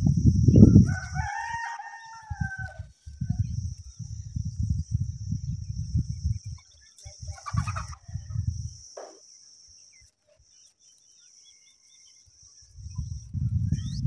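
Gusts of wind buffeting the microphone, coming and going, dropping away about nine seconds in and returning near the end. A single drawn-out call about a second in, lasting about a second and a half, over a steady high hiss.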